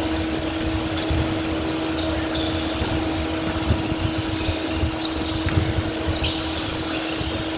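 Basketball being dribbled on a hardwood gym floor with players' sneakers squeaking, over a steady hum.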